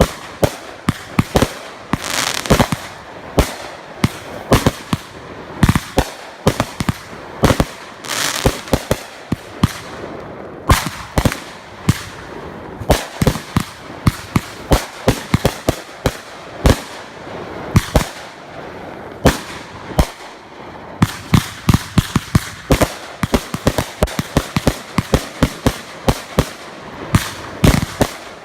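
Fireworks going off: a steady run of sharp bangs and pops, several a second, with crackling in between.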